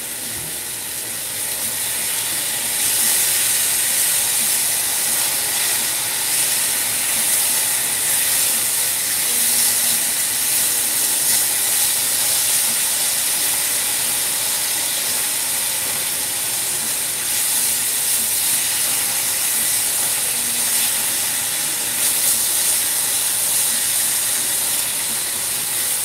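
Tomatoes sizzling in hot spiced oil in a pot on a gas burner: a steady hiss that grows a little louder a few seconds in, while a spatula stirs them.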